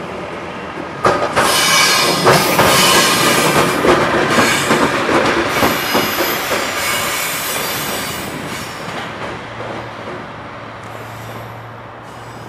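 A train hauled by a VR Sr1 electric locomotive passing close by, its wheels clattering over rail joints and points with thin, high-pitched wheel squeal. The noise starts about a second in and fades after about eight seconds, leaving a steady low hum.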